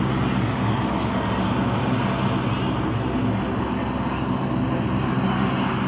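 Lockheed C-130H Hercules's four Allison T56 turboprop engines and propellers running in a steady drone as the aircraft moves along the runway.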